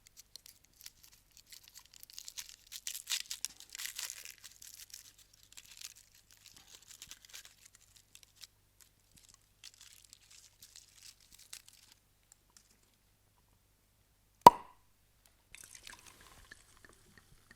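Champagne bottle being opened: crinkling and tearing of the foil wrapping for about twelve seconds, then a single sharp cork pop about fourteen and a half seconds in, followed by a brief faint fizz.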